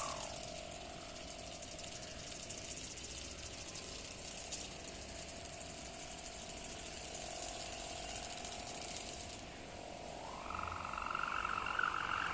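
Sendaren kite hummer on a mini Pegon kite buzzing in the wind, a steady droning hum with a fast rattling buzz. Its higher tone drops away at the start and comes back about ten seconds in.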